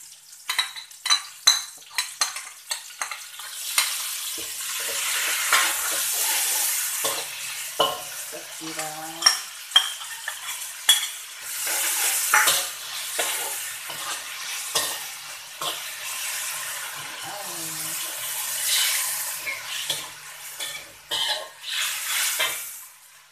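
A slotted metal spatula scrapes and clinks against a metal wok as sliced onion, ginger, garlic and chillies fry in oil with chili sauce stirred in. The sizzling swells and fades several times between sharp spatula clicks.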